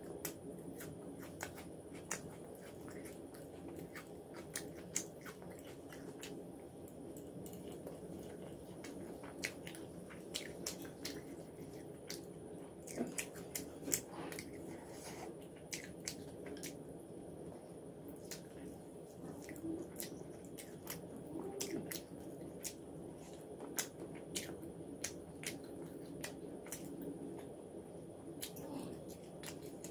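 A person eating fried rice and chicken by hand: chewing with wet mouth clicks and smacks coming irregularly, over a steady faint background hum.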